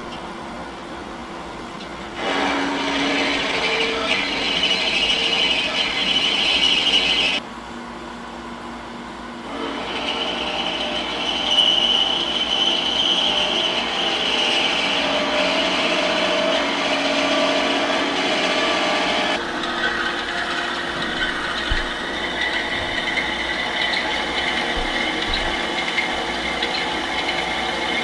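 Scotchman SU-280 G horizontal band saw running and cutting metal stock, its blade giving a steady high whine over the motor. The sound steps up about two seconds in, breaks off sharply around seven seconds, picks up again near ten seconds and changes once more past the middle, as separate cuts follow one another.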